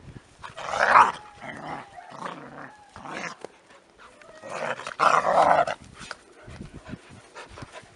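Two German Shepherd puppies play-fighting, with two loud bouts of raspy play growling and snarling, about a second in and again around five seconds in, and softer scuffling between.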